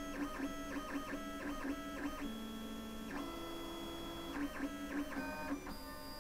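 LulzBot TAZ6 3D printer's stepper motors whining through a run of short moves, the pitch jumping with each move, as the toolhead wipes its nozzle back and forth on the felt wiper pad.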